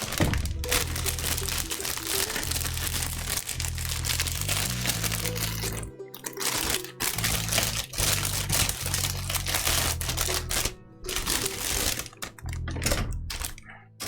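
Background music with a steady bass line, over the crinkling and rustling of plastic bags as a model kit's sprues are handled and pulled out.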